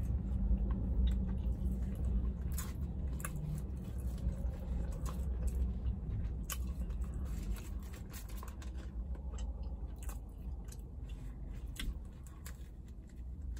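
Close-up chewing of a fried chicken biscuit, with many short wet mouth clicks. A big bite comes near the end. A steady low hum runs underneath.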